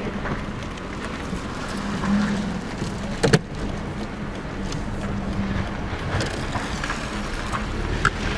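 Mercedes-Benz CLK driving, heard from inside the cabin: a steady engine hum and road rumble. A sharp knock about three seconds in and a smaller click near the end.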